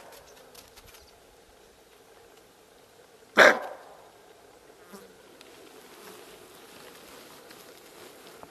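A bushbuck's alarm bark: one loud, harsh bark about three and a half seconds in, over a faint steady background.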